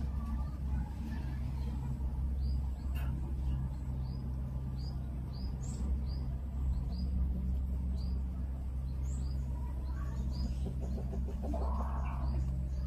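Small birds chirping in quick, short high notes, about two a second, over a steady low rumble. A brief mid-pitched sound comes near the end.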